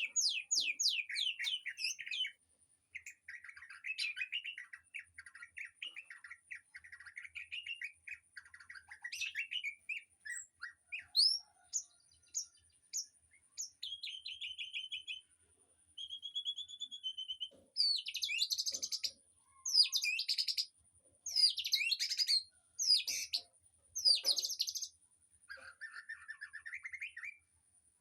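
Aviary songbirds singing and chirping in a varied string of fast trills, chatters and whistled phrases, loudest in a run of sharp sweeping phrases about two-thirds of the way through. A thin, steady high-pitched tone runs underneath.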